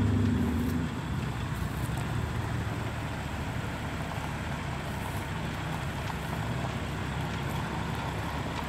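Tow truck's diesel engine working at low revs as it moves a disabled GM Scenicruiser bus. It is louder for about the first second, then settles into a steady low rumble.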